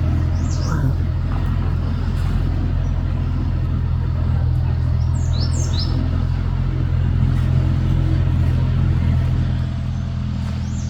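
A few short, high bird chirps, one about a second in and a quick group of falling chirps around five to six seconds, over a steady low rumble.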